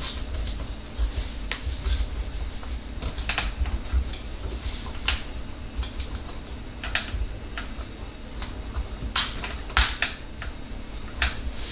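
Irregular small clicks and taps of fingers working a metal hose clamp onto a plastic dishwasher drain connector, with two sharper clicks close together near the end, over a low rumble.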